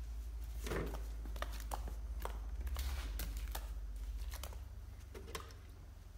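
Stiff hand brush scrubbing the wet, weathered wood of a bench's side panel in short, irregular strokes, over a steady low hum.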